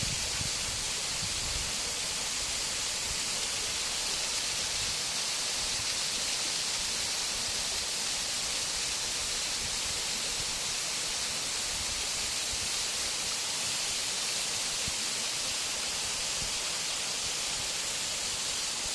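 A partly frozen waterfall, its water still falling between the ice and icicles, making a steady, hissing rush.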